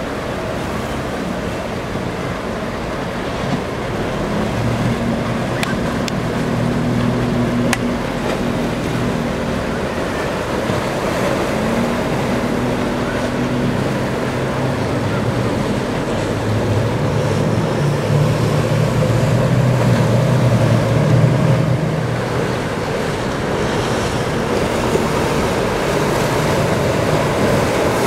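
Motorboat engines running at speed over a steady rush of hull spray and breaking waves. A low engine drone swells twice, the second pass louder.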